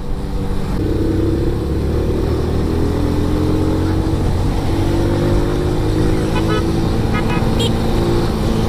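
Motorcycle engine running while riding: the throttle opens about a second in and the engine pitch climbs slowly as it accelerates.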